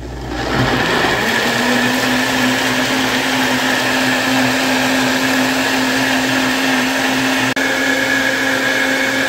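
Personal bullet-style blender starting up and puréeing a sauce of fried vegetables, chile and cream cheese at full speed. It winds up over the first second into a steady high whine over a loud rush, with a brief dip about seven and a half seconds in.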